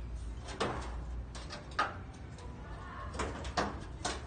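A handful of light knocks and clicks, irregularly spaced, over a low background hum.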